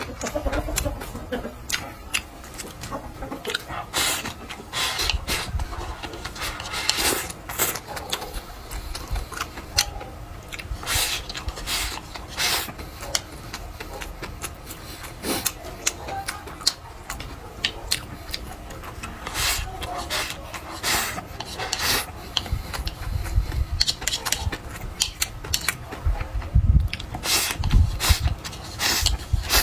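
Close-miked eating sounds: irregular crunches, smacks and chewing noises from someone eating.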